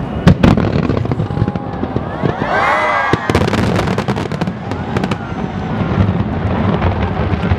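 Aerial fireworks bursting over the water: two sharp loud bangs just after the start, then a run of short crackling pops, with crowd voices underneath.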